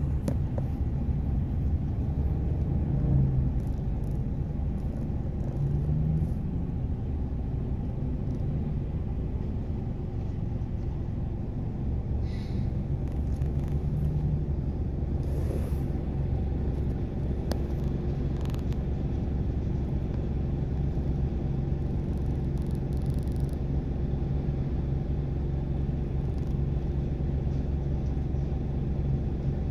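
Steady low engine rumble of road traffic, heard from inside a car's cabin.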